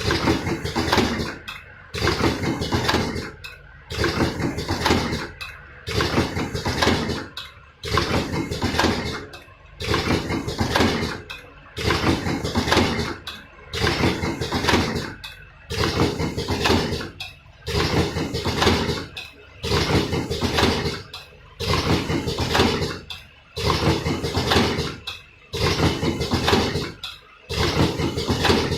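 Automatic cartoning machine running through its packing cycle. A mechanical clatter repeats about every two seconds, each cycle starting sharply and dying away before the next.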